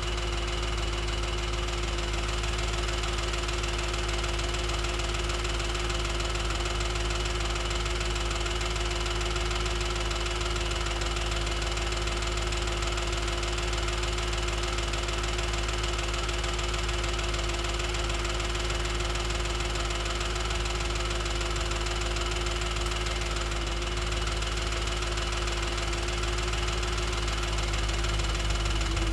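2007 Audi S4's 4.2-litre V8 idling steadily, recorded to find a ticking noise that appeared after a full timing chain job and a new clutch and flywheel.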